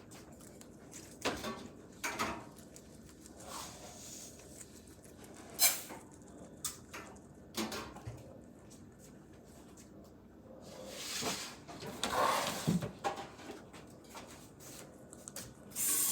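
Scattered kitchen knocks and clicks, like cupboards, drawers and utensils being handled while cooking, with a longer rough, hissing noise about eleven seconds in.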